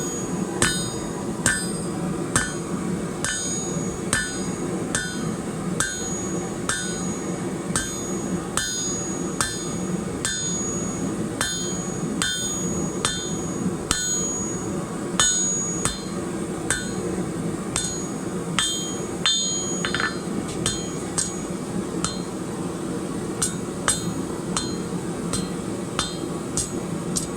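Hand hammer striking hot bar stock on an anvil at a steady pace of a little under two blows a second, drawing out a taper. Each blow leaves a short high metallic ring, somewhat damped by chains draped over the anvil. A steady low roar runs underneath.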